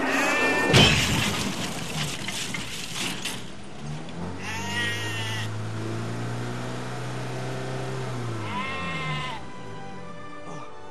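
A crash: one loud impact about a second in, followed by a couple of seconds of clatter. Then a sheep bleats twice, over music with a low held note.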